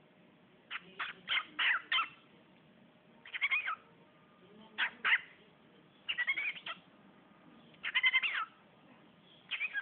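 Cockatiel chirping and chattering in short bursts of quick, wavering notes, about six bursts a second or so apart.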